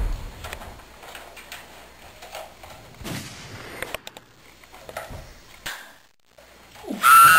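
A loud bang dies away, followed by scattered light clicks and knocks from handling a toy pump-action shotgun. Just before the end a loud held tone with overtones starts.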